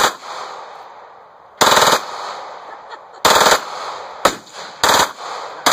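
Fully automatic pistol fired in short bursts, about one burst a second, each a rapid string of shots lasting a fraction of a second, with the reports echoing between bursts.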